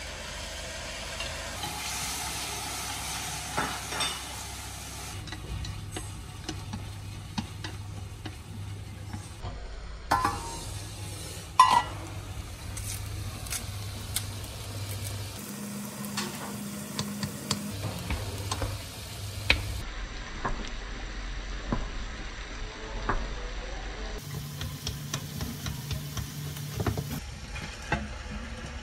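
Food sizzling and frying in a pan while it is stirred, with frequent taps and scrapes of a utensil against the pan.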